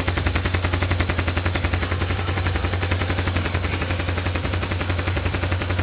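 Honda CB 300's single-cylinder engine idling steadily through a Roncar Coyote 2 Way exhaust tip with its butterfly valve closed in quiet mode, an even rapid exhaust pulse close to the stock exhaust sound.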